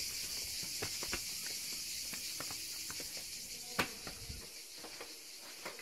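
Cicadas buzzing in a steady, high-pitched chorus, with scattered footsteps and small clicks and one sharper click about two-thirds of the way through.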